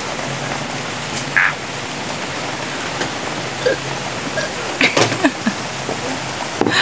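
A steady hiss of noise, with a couple of faint brief sounds about a second and a half and five seconds in.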